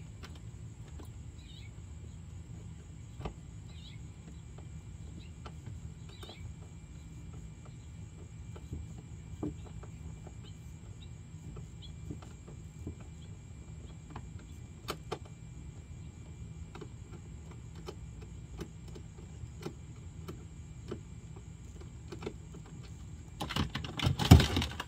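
Scattered light clicks and knocks of hands and tools working on a plastic ride-on toy car, over a steady low rumble. Near the end comes a louder, brief clatter as parts are handled.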